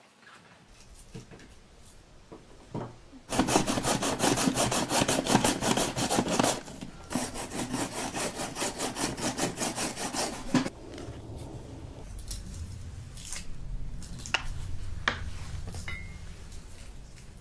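Fast, even rasping strokes, several a second, like something being scraped or sawn back and forth on a hard surface. They start about three seconds in, pause briefly near the middle and stop suddenly, followed by a few light knocks.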